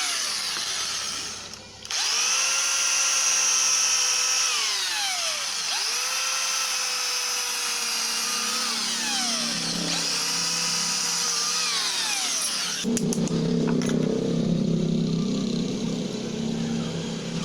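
An electric power tool's motor whining at speed, starting up three times and each time sliding down in pitch as it slows or takes load. Near the end a lower, steady machine hum takes over.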